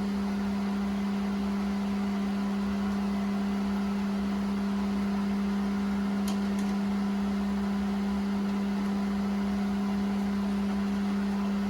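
Steady low hum, even in level throughout, with two faint clicks in quick succession just past the middle.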